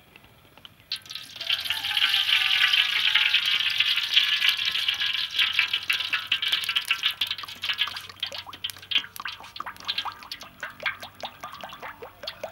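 Cooking oil poured in a thick stream from a plastic bottle into a large metal wok. A steady splashing pour starts about a second in, and in the second half it breaks up into separate glugs and splashes.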